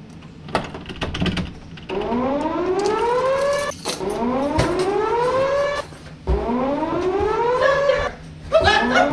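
Whooping alarm siren: a few clicks, then from about two seconds in a loud wail that rises in pitch for about two seconds and cuts off sharply, repeating four times.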